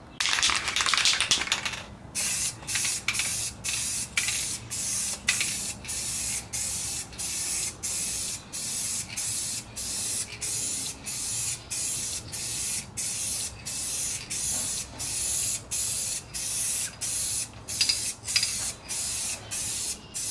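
Paint spraying on in a yellow coat, hissing in short bursts about two a second after one longer, louder burst at the start.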